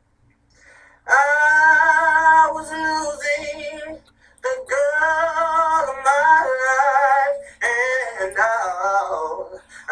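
A solo voice singing a song with vibrato in phrases a few seconds long, starting about a second in after a brief hush.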